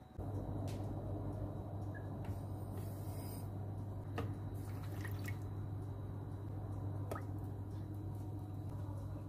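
Milk and cooking oil being poured into a plastic mixing bowl of eggs and sugar, with splashing and dripping and a few sharp taps, over a steady low hum.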